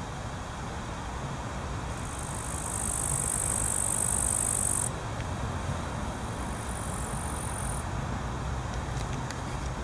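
Grasshoppers chirping in a long, high-pitched buzzing trill that starts about two seconds in and stops abruptly some three seconds later, then a shorter, fainter one. A steady low rumble of road traffic runs underneath.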